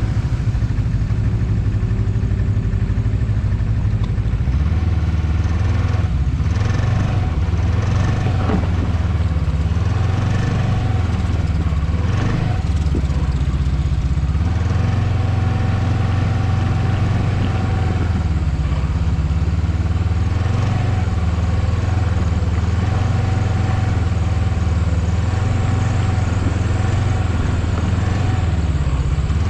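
Ski-Doo Expedition SE snowmobile engine running while riding a snowy trail, heard from the rider's seat. It is a steady low drone that grows stronger about four seconds in, and its pitch rises and falls with the throttle.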